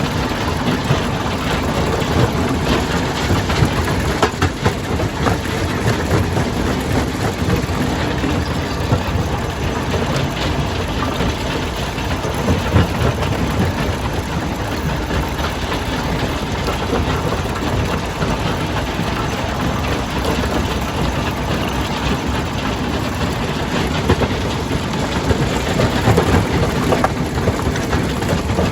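Jaw crusher running and crushing stone: a steady heavy mechanical drone with frequent knocks and clatter of rock.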